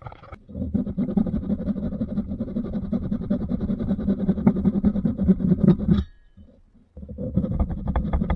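A hand tool working wood: a steady, rough scraping and rasping for about five and a half seconds. It stops for about a second, then starts again near the end.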